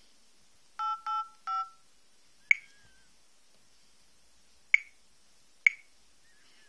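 Telephone keypad dialing: three short touch-tone beeps in quick succession about a second in, each two tones sounded together, followed by three sharp, single clicks spread over the next few seconds.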